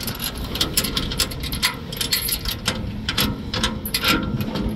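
Steel chain links clinking and rattling against the rear-gate latch and bar of a Lawrimore dump trailer as the chain is handled by hand: a run of irregular, sharp metal clicks.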